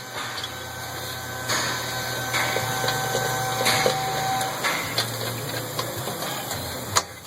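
Metal hub assembly being wiggled onto the axle and its bolts started by hand, with scattered metallic handling noises and a sharp click near the end. A steady low hum runs underneath, and a faint steady whine sounds for a few seconds near the start.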